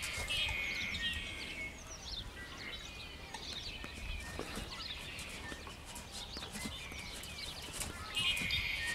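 Birds calling in bursts of chirps, loudest just after the start and again near the end, over the muffled footfalls of a horse moving on a sand arena.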